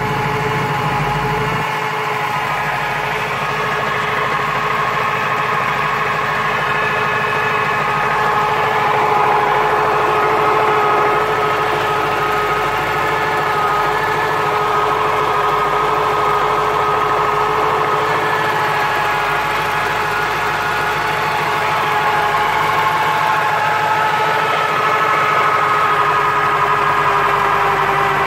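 1996 Corvette C4's LT4 V8 running steadily, with a steady whine riding over the engine note. The whine is the noise problem the owner puts down to the ZF six-speed manual gearbox.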